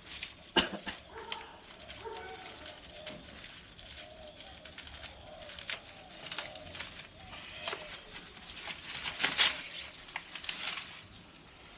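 Irregular clicks, knocks and rattles of bicycle parts and tools being handled during assembly, with the loudest knocks about half a second in and around nine seconds. Birds coo faintly in the background.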